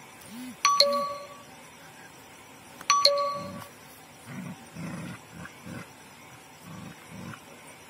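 Two sharp, ringing bell-like dings about two seconds apart, then pit bull puppies growling in short bursts as they tug at a shoe.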